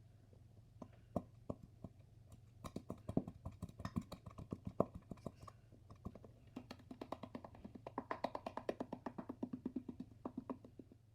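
Background music made of a quick run of short, clicky notes, several a second.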